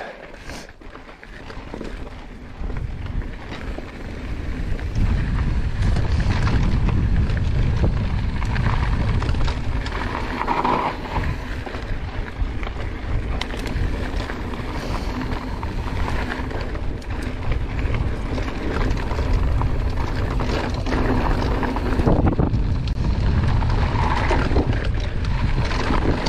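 Wind rushing over the microphone of a mountain bike's handlebar or chest camera on a fast descent, with the rumble of knobby tyres rolling over dry dirt and rock and scattered small clicks and knocks from the bike. It is quieter for the first couple of seconds, then holds steady.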